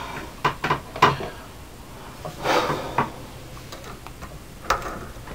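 Metal parts of a Corbin bench swaging press and its die clicking and knocking as a bullet is worked in it: a few sharp clicks in the first second, a short rush of scraping noise about halfway, then single clicks at about three seconds and near the end.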